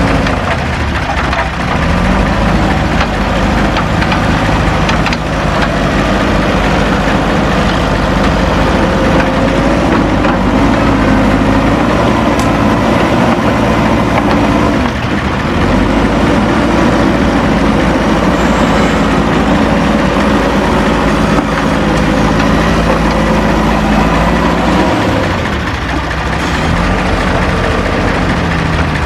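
Heavy diesel engine of a backhoe loader at work, revving up and dropping back several times.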